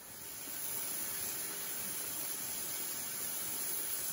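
Steady hiss of a portable gas stove burner running at the table.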